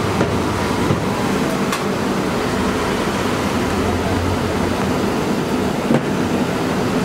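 A steady mechanical rumble with a hiss over it, and a few faint soft knocks about a second in and again near the end.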